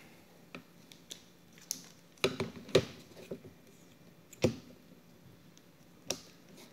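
Scattered sharp clicks and light knocks of a MacBook Pro laptop battery being handled and set into the aluminium lower case. The loudest knock comes a little under three seconds in.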